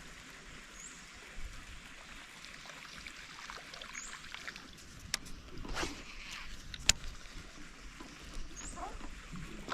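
Waterside ambience: a steady hiss with a small splash about six seconds in, two sharp clicks around it, and a faint short high chirp three times.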